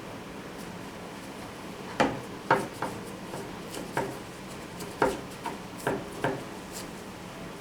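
A run of sharp, uneven knocks and taps on wood, about nine over four seconds, starting about two seconds in after a quiet start.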